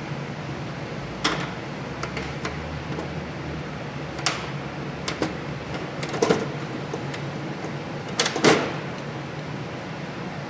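A few scattered knocks and clanks of tools and parts being handled during rear axle work, the loudest pair near the end, over a steady low hum.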